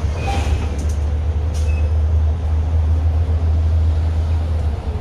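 Steady low rumble of a city bus's engine and drivetrain with road noise, heard from inside the bus near the front as it drives along.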